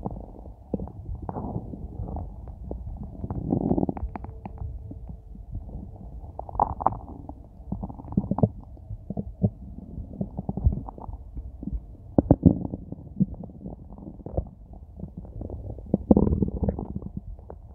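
A hungry human stomach growling and gurgling close to the microphone: irregular low rumbles broken by many short pops and bubbling gurgles.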